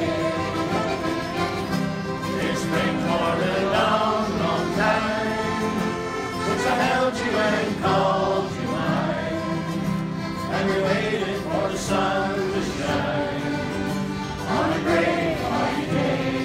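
Live Newfoundland folk music: a button accordion and an acoustic guitar playing, with a group of voices singing along.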